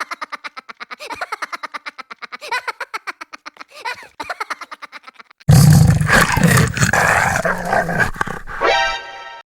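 Cartoon animal sound effects with music: a fast run of short pulses, then about halfway a sudden, much louder roar-like growl. A short rising tone follows near the end.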